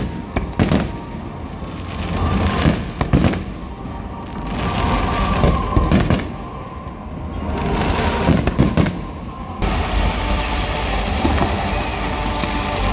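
Large fireworks display: aerial shells bursting with sharp bangs, several reports a second or more apart, with a rising and falling rumble between them. Near the end the sound switches abruptly to a steadier, continuous rumble.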